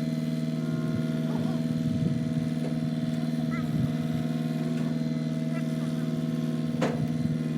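An engine idling steadily at a constant pitch, with a sharp click near the end.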